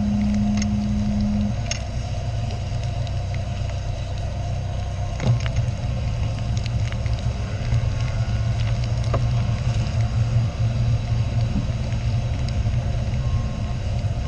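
Caterham race car's engine running steadily at low, even revs, heard from on board, with a few light clicks. A steady low hum cuts off about a second and a half in.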